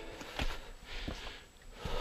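A person breathing hard, with two breathy puffs about a second apart and a few light knocks.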